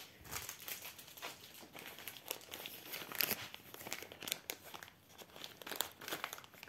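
Plastic wrapping crinkling and crackling on and off as it is handled.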